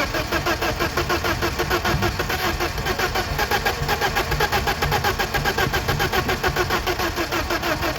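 1995 BMW E34's starter cranking the engine over in a steady, rapid rhythm without it catching: a crank-but-no-start.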